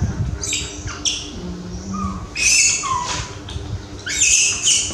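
Baby monkey crying in high-pitched, shrill screeches, three bursts of just under a second each about a second and a half to two seconds apart: distress cries of a frightened infant monkey.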